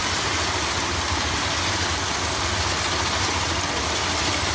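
Henequen twine-spinning machine running steadily, a low hum under an even mechanical noise as the twine winds onto its spool.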